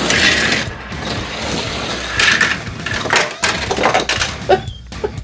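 Small die-cast toy hovercraft rolling down an orange plastic Hot Wheels track, its metal body and little wheels clattering and rattling on the plastic. The clatter is loudest at the start and again about two seconds in.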